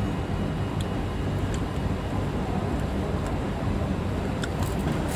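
Steady low rumbling background noise with no tone in it, and a few faint short clicks scattered through, a cluster of them near the end.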